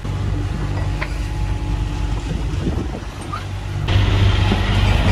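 A yacht under way: a steady low engine drone with wind and water rushing past. About four seconds in, the rush of wind and sea gets suddenly louder.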